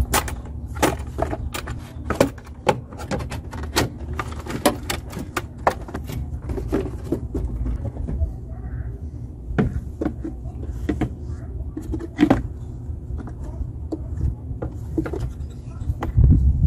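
Plastic air filter housing, filter and rubber intake hose being handled and fitted into a car's engine bay: a string of sharp plastic clicks and knocks over a steady low rumble.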